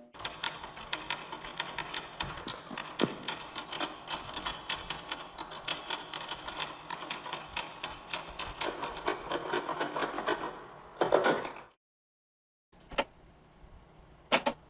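Rapid typing on keys: a dense, uneven run of clicks that ends in a louder clatter about eleven seconds in. After a brief gap, a few separate clicks near the end.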